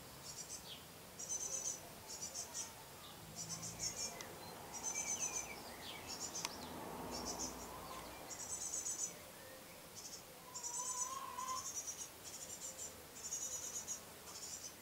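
High, buzzy chirping trills repeating in short bursts, with a few short bird calls and a whistled bird phrase about ten seconds in.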